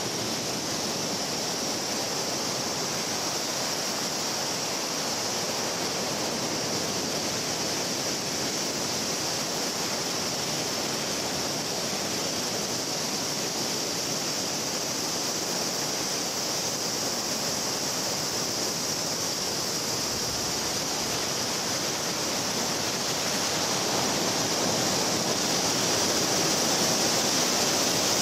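Ocean surf breaking steadily on a sandy, rocky beach: a continuous rushing wash with a steady high hiss over it, growing a little louder near the end.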